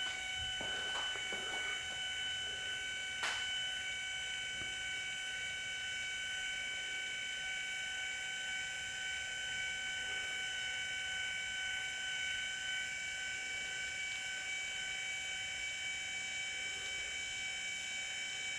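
Progressive Automations PA-14 linear actuator (5-inch stroke, 12 V) retracting, its gear motor giving a steady, even whine with one faint click about three seconds in. There is no knocking: this is the good actuator, the reference for the knocking fault in the longer-stroke unit.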